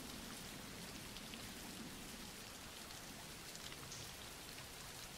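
Faint, steady rainfall from a recorded rain background track.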